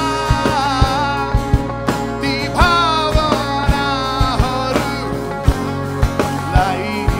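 Rock band playing live: a male lead singer holds long, wavering high notes, the second starting about two and a half seconds in, over a drum kit keeping a steady beat, electric bass and guitar.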